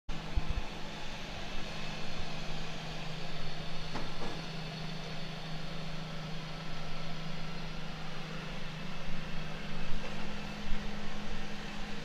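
Makita DRC300 robotic vacuum cleaner running: a steady motor hum with an even hiss of suction. A faint tick about four seconds in.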